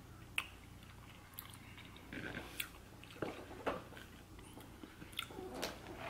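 Soft mouth sounds of someone eating cotton candy close to the microphone: scattered lip smacks, clicks and light chewing as the candy melts in the mouth.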